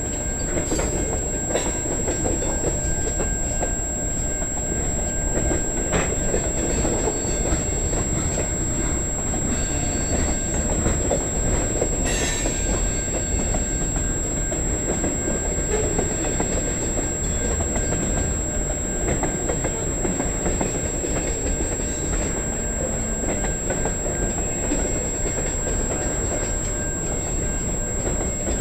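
Long freight train of covered hoppers and tank cars rolling past at steady speed: a continuous rumble of wheels on rail, with a few sharp clanks from the cars.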